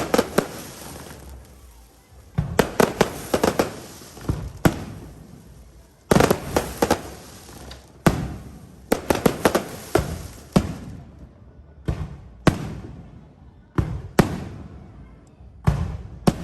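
Fireworks exploding in rapid volleys of sharp bangs, each cluster trailing off in an echoing rumble, with a new volley every second or two.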